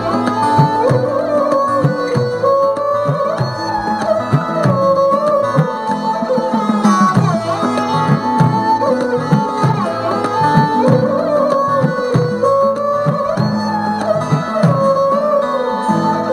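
Background music: an Indian instrumental passage with hand drums keeping a steady rhythm under a gliding melody line.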